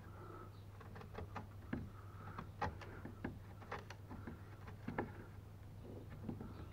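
Wood chisel pushed by hand, paring out a notch in a wooden stringer: faint, irregular clicks and crunches as the edge bites and chips split away.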